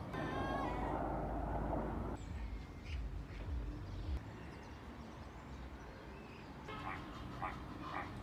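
Animal calls: one long call of about two seconds at the start, then a few short calls near the end.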